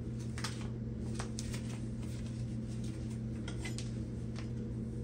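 Plastic food packaging crinkling and crackling a few times in gloved hands, over a steady low hum.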